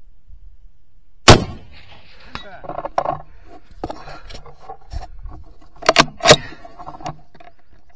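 A single loud rifle shot about a second in, followed by a run of metallic clicks and clacks as the bolt-action rifle is cycled, the loudest two sharp clacks close together around six seconds in.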